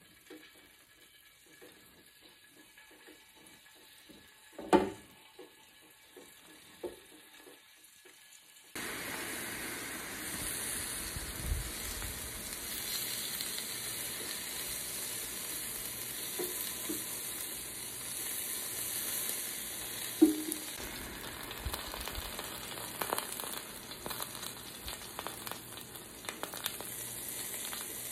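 Tongs clicking and knocking as scallops are laid on a Ninja Foodi Grill's grill grate, with one sharp knock about five seconds in. About nine seconds in a steady sizzle starts suddenly: the scallops searing on the hot grate, with tongs clicking and tapping as they are turned.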